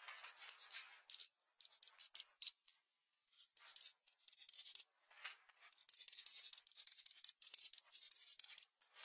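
Pencil scratching on paper in quick short strokes, coming in bursts with brief pauses between them.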